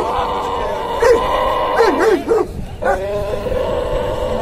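Dogo Argentinos barking at each other: several short, sharp barks in the middle, between long, steady, high whining cries.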